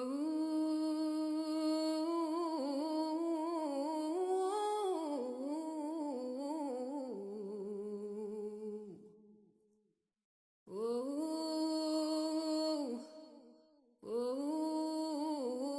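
A solo voice humming a wordless melody: one long phrase of about nine seconds that fades out, then after a short pause two shorter held phrases.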